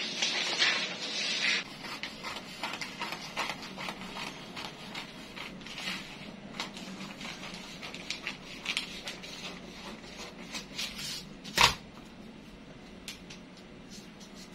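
Paper being cut with scissors and handled: a burst of snipping and paper rustling in the first second and a half, then light rustles and taps of paper and tape, with one sharp knock about twelve seconds in.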